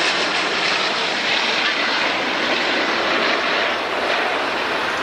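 Turbofan engines of a four-engine jet airliner, a steady, even rushing noise that holds its level throughout.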